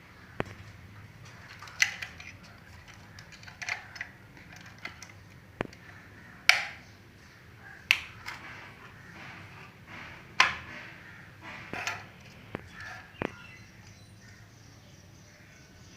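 Irregular sharp clicks and clacks, about nine of them spread unevenly, a few with a brief ringing tail.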